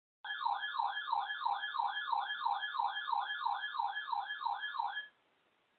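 Electronic attention tone of an emergency alert broadcast for a coastal flood warning, warbling rapidly up and down at about three sweeps a second. It cuts off suddenly about five seconds in.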